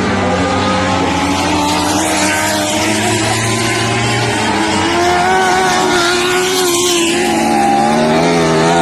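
Several lightning sprint car engines running hard on a dirt oval. Their overlapping tones rise and fall as the cars pass and go round the track.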